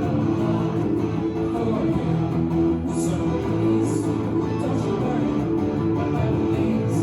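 A live band playing an instrumental passage led by strummed guitar, recorded through a cell phone's microphone.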